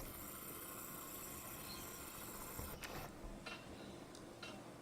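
Faint, steady high-pitched whir of the camera's autofocus motor hunting for focus, stopping about three seconds in, followed by a couple of soft clicks.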